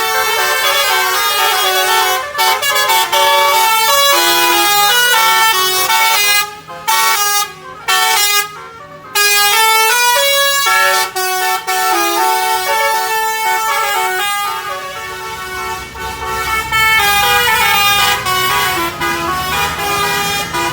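Bus basuri horn, a multi-tone musical air horn, playing a melody in stepped tones with a few short breaks about seven to nine seconds in. A low rumble comes in underneath for the last few seconds.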